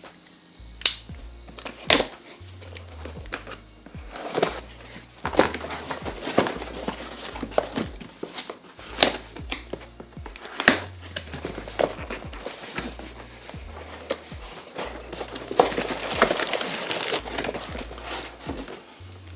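Background music with a stepping bass line, over plastic and cardboard packaging rustling and crinkling and sharp knocks of metal machine parts being unpacked and set down.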